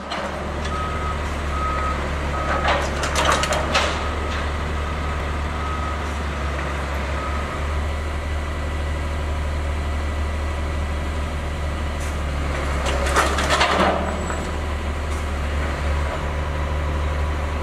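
Track-renewal train's engine running with a steady low hum. A warning beeper sounds repeatedly for about the first seven seconds, and there are two bouts of metallic clanking, about three seconds in and around thirteen seconds in.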